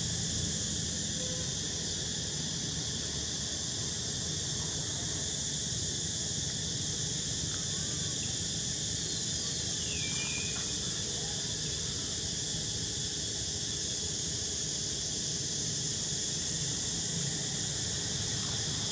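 Steady insect chorus, a continuous high buzz over a low outdoor rumble, with one brief high chirp about ten seconds in.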